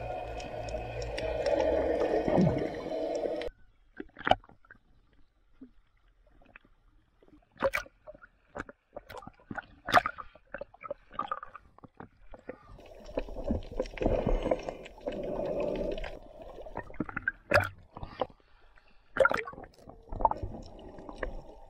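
Water gurgling and sloshing around an action camera held at and below the surface, with scattered sharp clicks and pops of bubbles and water against the housing. A dull rushing noise cuts off suddenly about three and a half seconds in and comes back for a few seconds around the middle.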